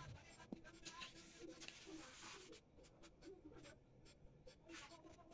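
Faint rustling and scraping of a sheet of paper being handled and smoothed flat on a table, with a few light taps.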